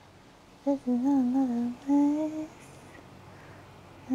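A person humming a wordless tune in two short phrases, the first about a second in and the second just after two seconds.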